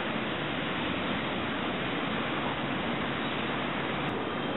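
Steady, even hiss of background noise with no distinct sound in it.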